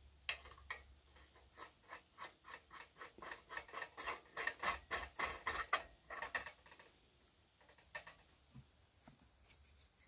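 Knurled metal cap nut being screwed by hand onto the threaded stud atop the nickel-plated hood of a Hasag 351 L petrol pressure lamp: a quick run of small metallic clicks, about three or four a second, growing louder, that stops about six seconds in. A few soft knocks follow.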